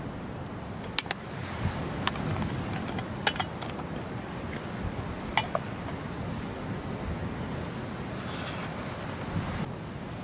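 Steady wash of sea waves and wind, with several sharp metallic clinks from a stainless steel pot and its lid being handled in the first half, and a brief scraping hiss near the end.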